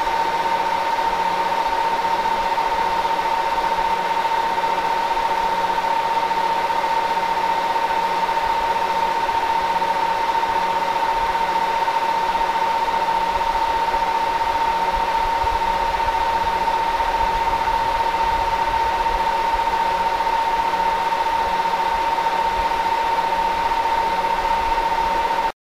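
A single steady high tone, beep-like and held without a break, over a hiss and low hum. It starts and stops abruptly.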